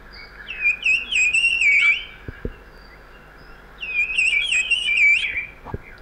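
A recording of brown-cheeked fulvetta contact calls, the calls a flock uses to keep together in dense undergrowth, is played back. There are two runs of quick, wavering high whistled notes, each lasting one and a half to two seconds, about two seconds apart.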